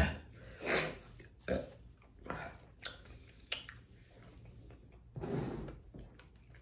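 A woman burping, the loudest burp right at the start, followed by a few breathy exhales and small mouth clicks.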